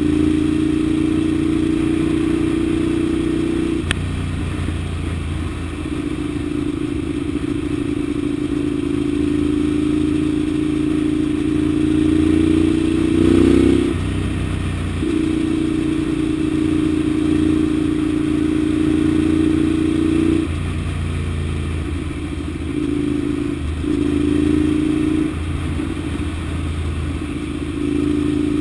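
Ducati 795's air-cooled L-twin engine running under way at a steady note, heard from the bike itself. The pitch climbs around the middle before dropping away, and the note cuts out and comes back several times as the throttle is closed and opened again.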